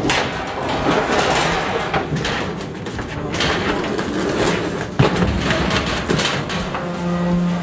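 Heavy animal transport crates and cages being pushed and shifted on a truck's cargo floor: scraping, rattling and repeated knocks and thuds, with a sharp bang about five seconds in. A steady low hum begins near the end.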